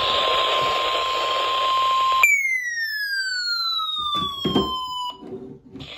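NOAA weather radio alert tone, a steady single tone near 1 kHz, heard through radio static for about two seconds. The static then cuts off and a single electronic tone glides smoothly downward for about three seconds, with a few short clicks near its end.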